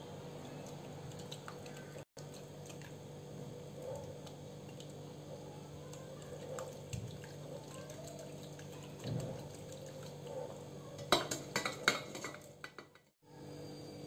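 Faint squelching and dripping from a wet muslin cloth of freshly washed chhena being squeezed by hand over a steel strainer, over a steady low hum. A short run of clinks comes near the end.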